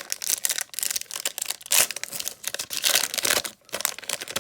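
A foil Pokémon card booster pack being torn open and handled, its wrapper crinkling and crackling in quick, irregular bursts.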